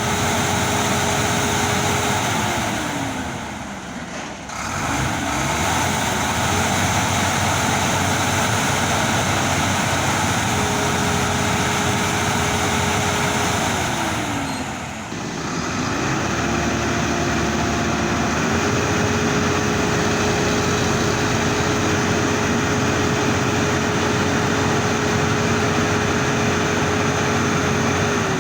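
A motor vehicle driving on the road, with steady road and engine noise. A held engine or drivetrain whine slides down in pitch twice as the vehicle eases off, then climbs back up in steps.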